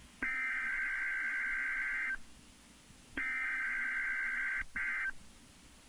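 Emergency Alert System SAME header bursts over NOAA Weather Radio: a harsh, buzzy two-tone digital data screech, sent twice, each burst about two seconds long with a second's pause between, the second one briefly breaking up near its end. These coded bursts announce an alert, here a tornado watch.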